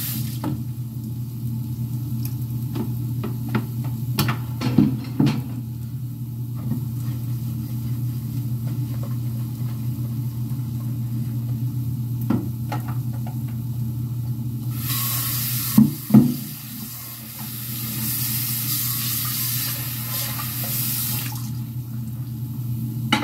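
Kitchen tap running for about six seconds in the second half while dishes are washed, with scattered clinks of dishes and utensils over a steady low hum.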